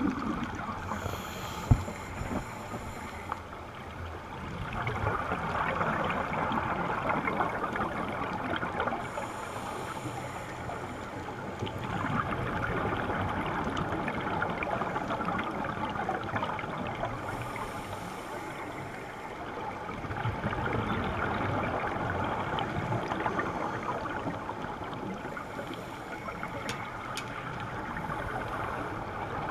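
Underwater scuba breathing: a hissing breath through the regulator about every eight seconds, each followed by a long gurgling rush of exhaled bubbles. There is a single sharp knock about two seconds in.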